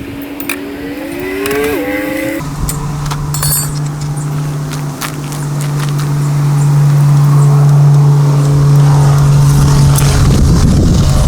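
A motor vehicle's engine running: a short rising whine in the first couple of seconds, then a steady low hum that grows louder and stays loud to the end.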